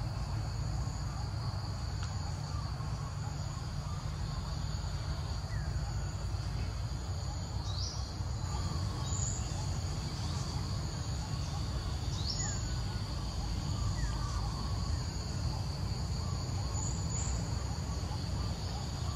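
Outdoor ambience of insects droning steadily in two high tones over a low rumble, with short, faint falling chirps every second or two.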